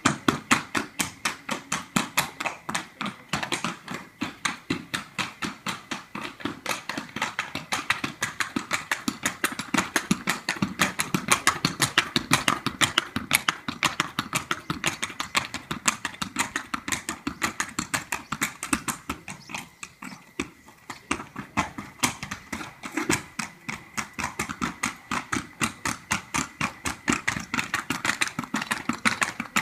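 Horse hoofbeats in a quick, steady rhythm of sharp strikes, with a short pause about two thirds of the way through.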